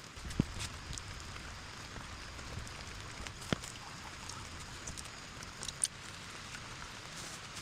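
Steady rainfall, with three sharp knocks spread through it.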